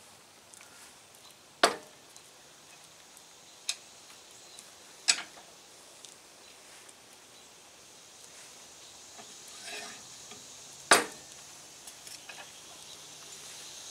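Steel bench vise cranked slowly to press universal-joint bearing caps into a driveshaft yoke: three sharp metallic clinks, about 2, 5 and 11 seconds in, with a softer one and a few faint ticks between.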